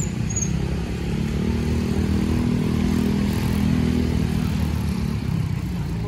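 A road vehicle's engine passing close by: a steady low drone that builds through the middle and fades out about five seconds in.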